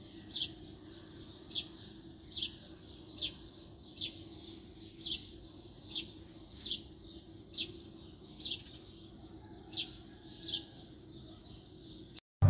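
A bird calling: a short, falling chirp repeated about a dozen times, roughly once a second, over a faint steady hum.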